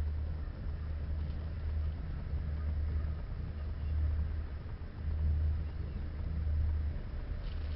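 Low, steady rumble heard from inside a moving cable car gondola, swelling and easing at intervals.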